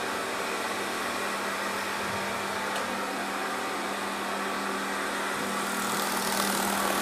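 Steady electric-motor hum with an even fan-like whoosh from a stainless-steel bowl chopper (bowl cutter) running while minced chicken is loaded into its bowl, growing a little louder near the end.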